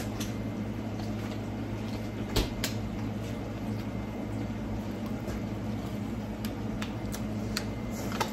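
Kitchen room tone: a steady low hum, with a few light pops and ticks from a pot of rice and sausage simmering on a gas burner. There is a sharper click about two and a half seconds in and another at the very end.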